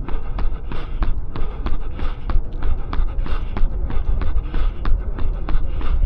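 A runner's footsteps striking pavement at a steady fast cadence, about three strides a second, with a low wind rumble on the microphone.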